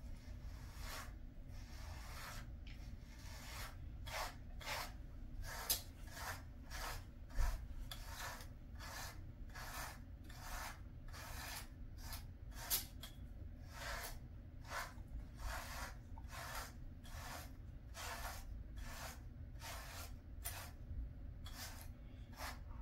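A pet grooming brush stroking through a Jindo dog's fur, with a short brushing sound about twice a second and a few stronger strokes here and there.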